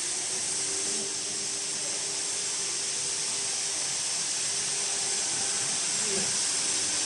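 Steady, even hiss of workshop machinery noise, with a faint constant hum underneath.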